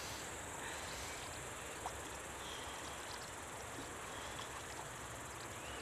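Insects chirping steadily over a quiet outdoor hiss, with a single small click about two seconds in.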